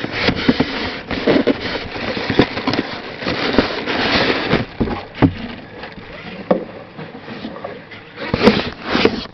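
Cardboard box and styrofoam packing being handled while a hair dryer is unpacked: continuous rustling and scraping with scattered knocks.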